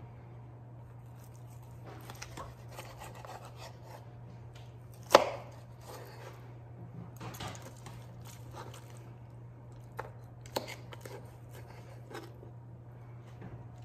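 Knife cutting through a rack of smoked ribs on a plastic cutting board: soft sawing scrapes and crunches, a sharp knock against the board about five seconds in, and lighter taps later.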